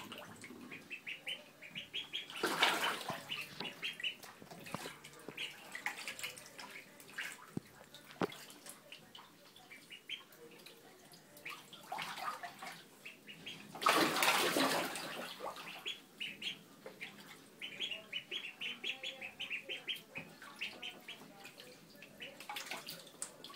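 Four-week-old ducklings peeping in quick runs of short high calls while they paddle in a bathtub, with water splashing, loudest a couple of seconds in and again about halfway through.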